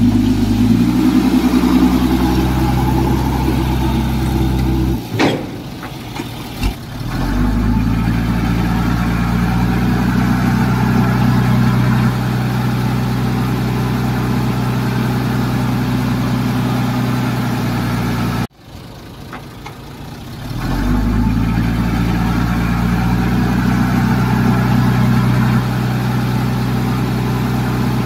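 Diesel engine of heavy construction machinery running steadily. The sound drops away briefly about five seconds in, cuts off abruptly about eighteen seconds in, then comes back and builds up a couple of seconds later.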